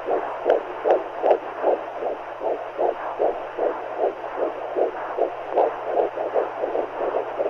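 Womb sound for soothing babies: rhythmic whooshing heartbeat pulses, about two and a half a second, over a steady hiss of white noise.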